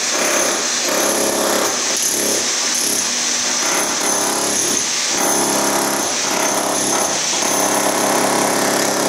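Electric demolition hammer with a pointed chisel bit hammering continuously into ceramic floor tile, breaking it up.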